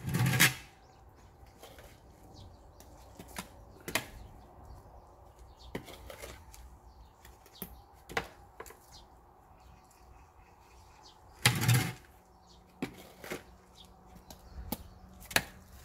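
Scattered rustling and scraping of gloved hands and a plastic scoop working fresh potting soil into a pot during repotting, with two louder bumps, one right at the start and one about twelve seconds in.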